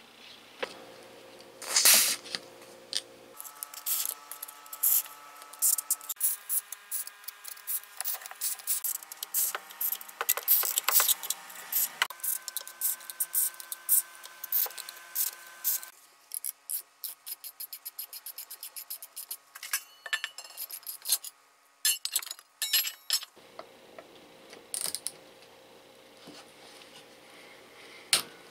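Hand tools working on an old Makita 1800 electric planer as it is taken apart: a string of sharp metallic clicks, clinks and scrapes of pliers and a screwdriver on screws and the metal housing, with a run of quick, even ticks midway.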